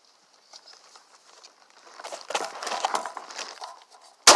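A single 12-gauge pump shotgun shot near the end, sharp and loud, with a long echoing tail. Before it there is faint rustling.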